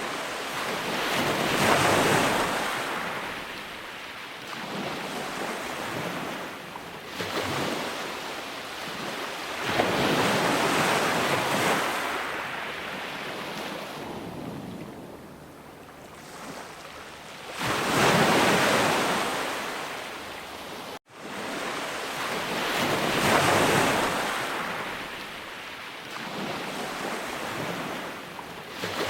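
Ocean waves breaking, each surge of surf rising to a hiss and washing away over several seconds. The sound cuts out for an instant about two-thirds of the way through, then the surf resumes.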